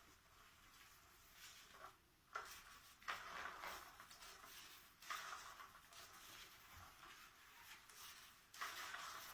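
Faint scratchy rustling in irregular bursts of about a second each, from the fabric cover of an Undercover Mouse-type cat toy being disturbed.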